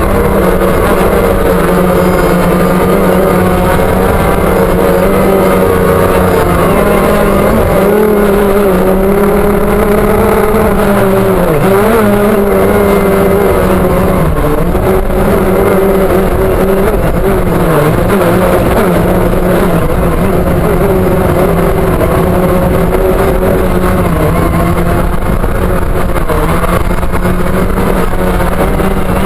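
DJI Phantom quadcopter's motors and propellers, heard from the camera mounted on the drone: a loud, steady buzzing hum whose pitch dips briefly a couple of times as the drone manoeuvres and comes down toward the grass.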